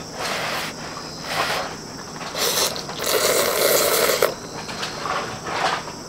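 A person slurping instant black-bean noodles in a run of noisy sucks. The longest and loudest slurp comes about three seconds in and lasts about a second.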